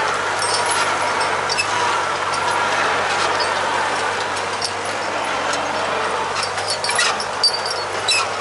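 T-40 tractor's diesel engine running steadily under load as it pulls a mouldboard plough through the soil, with rattles from the plough and a sharp clank about seven seconds in.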